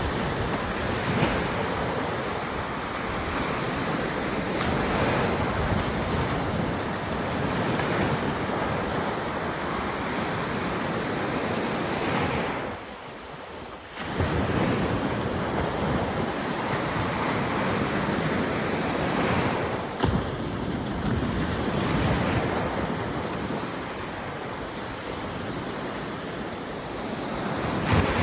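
Gulf surf washing onto a beach in swells that rise and fall every few seconds, with wind buffeting the microphone. The sound drops away briefly about halfway through.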